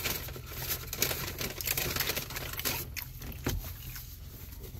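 Paper fast-food wrapping rustling and crinkling as it is handled, in irregular bursts that thin out after about three seconds, over a low steady hum.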